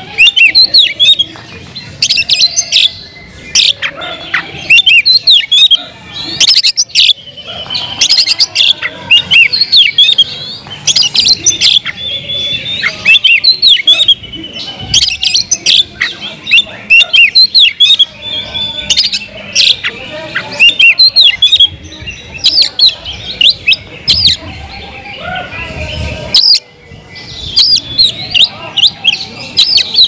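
Oriental magpie-robin (kacer) in full, active song: a loud, varied run of rapid high chirps and whistles, delivered in bursts with short gaps between them.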